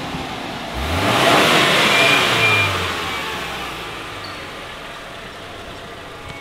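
Pickup truck engine accelerating as the truck drives up close, rising in pitch about a second in and loudest for the next two seconds, then easing off to a lower, steady running noise.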